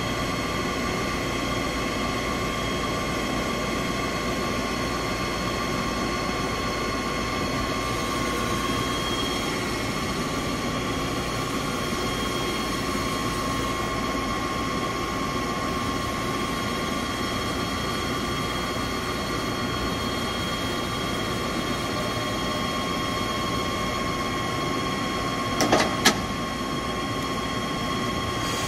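You-Ji YV-1200 CNC vertical turning/milling center running under power, a steady whine made of several even tones over a mechanical rumble. Near the end come a couple of sharp clicks.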